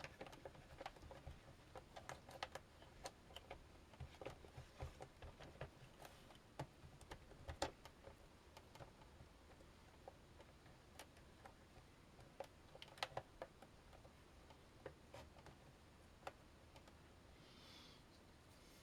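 Faint, irregular small clicks and taps of the ZX Spectrum's plastic case and parts being handled and fitted back together, with a soft brief rustle near the end.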